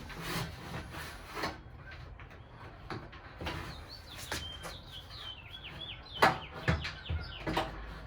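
Scattered knocks, clicks and scrapes of the patio heater's metal cylinder assembly and base being handled and lined up, loudest in a few sharp knocks late on. In the middle, a bird chirps in a quick run of short, high, falling notes.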